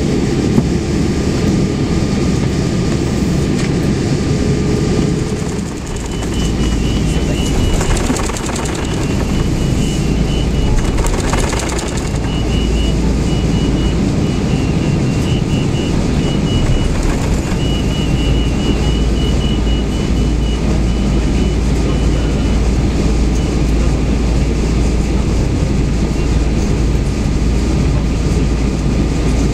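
Cabin noise of a Boeing 777-212ER climbing out after takeoff: a steady, loud roar of engines and airflow. About six seconds in, a deep low hum strengthens and holds, and a faint intermittent high tone sounds for a while after it.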